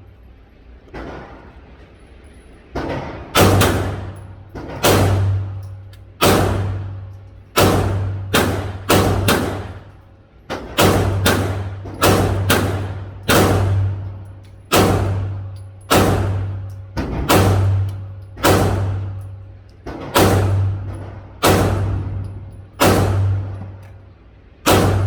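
Tisas PX9 Gen 3 9mm pistol fired at a steady, deliberate pace, about twenty shots mostly a second or so apart with a few quicker pairs. Each shot echoes and fades in the enclosed range.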